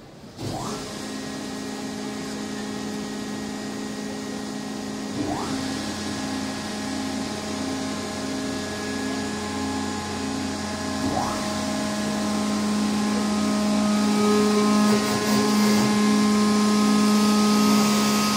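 F-4EJ Phantom engine start: a steady machine hum that begins suddenly and slowly grows louder, with three short rising sweeps about five to six seconds apart.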